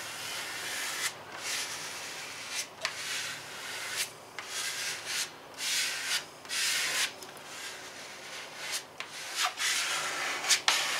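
Small plastic squeegee rubbing over the paper of a wet-applied vinyl decal in a run of short, uneven strokes, pressing the water out from underneath it.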